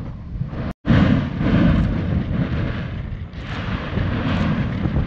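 Mount Yasur volcano erupting: a continuous low rumbling roar from the crater as lava spatter is thrown up, mixed with wind buffeting the microphone. The sound cuts out for an instant about a second in, then comes back at its loudest.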